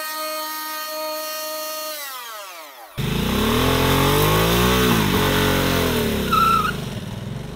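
A high electric-motor whine holds steady, then winds down in pitch. About three seconds in, an engine cuts in loudly and revs up and back down, with a brief high squeal near the end.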